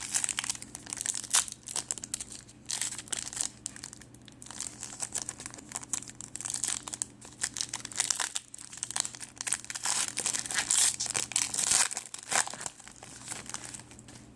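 Plastic trading-card pack wrapper being crinkled and torn open by hand, a dense run of irregular crackles that thins out near the end.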